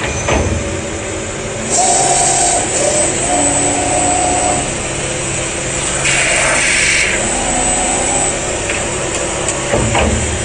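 CNC metal spinning machine running, its roller forming a spinning metal reflector blank on the spindle. It is a steady machine sound with two short high-pitched noisy bursts, about two seconds in and about six seconds in.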